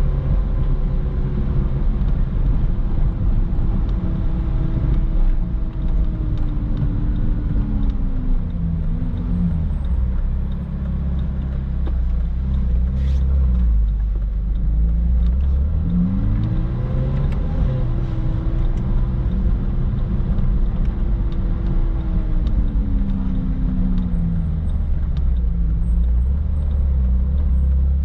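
Ferrari 458 Spider's 4.5-litre V8 running through a Brilliant aftermarket exhaust while driving, over a steady road rumble. The engine note drops away about eight seconds in, rises briefly about halfway through, then falls again and settles low near the end.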